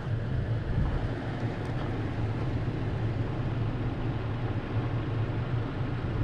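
Pickup truck engine idling: a steady low hum under a light hiss of outdoor air.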